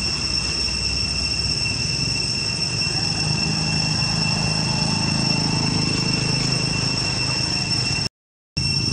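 Insects droning as a steady high-pitched whine, with a motorbike-drawn cart's engine rumbling low as it passes about halfway through. The sound cuts out for a moment near the end.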